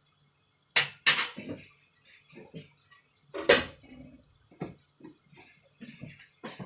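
Kitchen utensils and dishes clinking and knocking: three sharp strikes, near one second in and at about three and a half seconds, with lighter clatter between and after.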